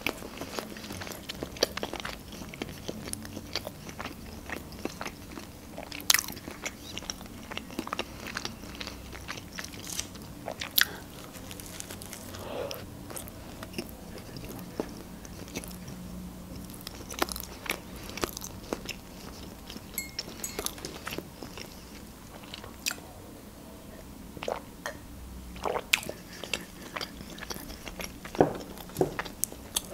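Close-up chewing of a hot dog in a soft bun with fresh greens: irregular wet mouth clicks and smacks, over a faint steady low hum.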